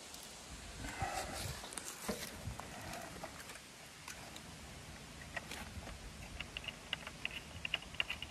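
Faint handling sounds of the mini-split's insulated copper refrigerant line being worked into place at the outdoor unit: scattered light clicks and rustles. From about halfway on, a run of short high chirps sounds in the background.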